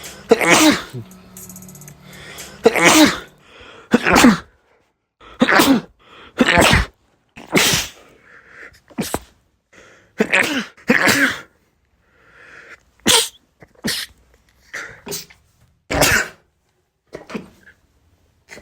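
A string of human sneezes, more than a dozen, each short and loud, spliced one after another with abrupt cuts and brief silences between them.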